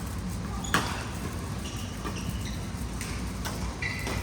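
Badminton rally sounds: one sharp crack of a racket hitting the shuttlecock about a second in, then fainter hits, with short high squeaks of court shoes on the floor. A steady low rumble runs underneath.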